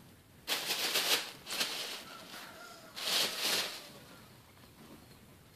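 Tissue paper crinkling and rustling as a cat pounces into it and scrabbles through it. It comes in three crackly bursts: a long one about half a second in, a short one soon after, and another about three seconds in.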